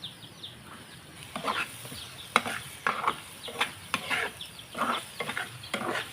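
Spatula stirring and scraping spice paste as it fries in a pan, with a steady faint sizzle and irregular scraping strokes about twice a second from about a second in.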